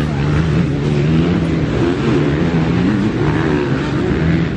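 Motorcycle engines running, their revs rising and falling, over a steady engine hum.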